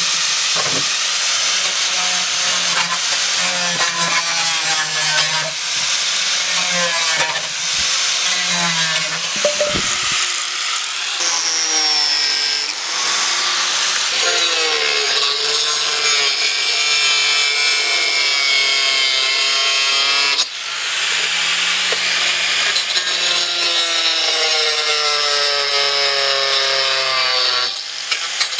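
Electric angle grinder with a cutting disc slicing through the thin plastic of a large water can. Its motor whine shifts in pitch as the disc bites and eases off, and breaks off briefly a couple of times.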